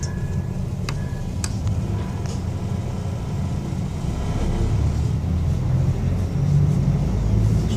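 Diesel passenger railcar heard from inside while moving: a steady low rumble that grows louder over the second half. A few sharp clicks or rattles come about one and one-and-a-half seconds in.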